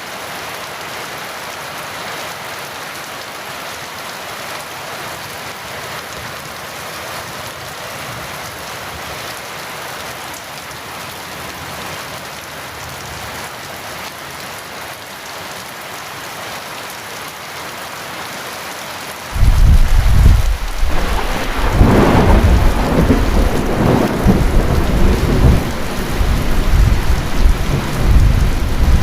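Heavy rain falling steadily; about two-thirds of the way in, a loud rumble of thunder breaks in suddenly and keeps rolling in waves over the rain.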